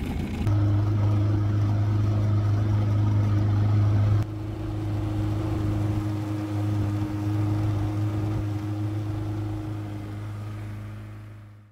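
A 25-horsepower outboard motor running steadily with a low, even hum. It drops in level about four seconds in and fades out at the end.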